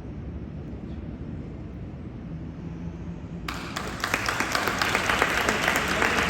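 Audience applauding, starting about three and a half seconds in after a stretch of low room rumble, and growing louder.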